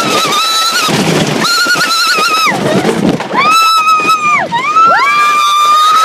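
Riders screaming on the GhostRider wooden roller coaster: a string of long, high screams, each held about a second and dropping in pitch as it ends, over the rushing noise of the ride.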